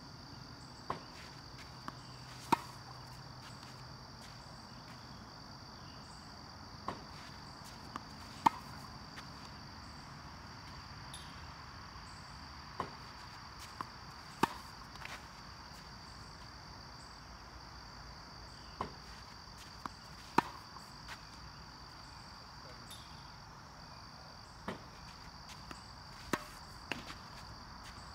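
Tennis racket striking a ball on slice backhands, one sharp hit about every six seconds, five in all, each led by one or two fainter knocks of the ball being fed by a ball machine and bouncing on the hard court. A steady high insect drone runs underneath.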